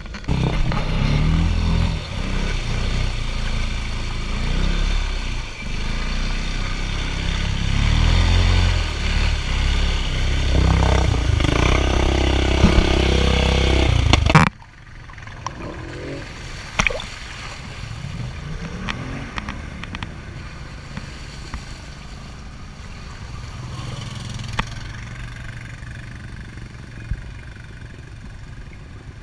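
Off-road vehicle engines revving hard and unevenly, loud through the first half. After an abrupt cut about halfway through, quieter engine noise follows, with a few revs.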